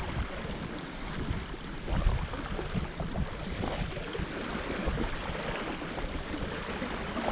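Water lapping and splashing, with wind rumbling on the microphone.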